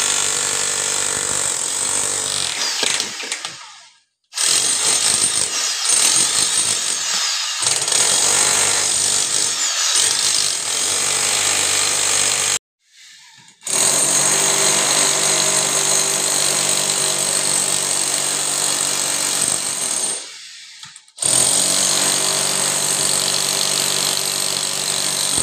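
Handheld electric demolition hammer chipping through a concrete slab to open a way for a 2-inch pipe. It runs loud and steady in four stretches, with short breaks between them.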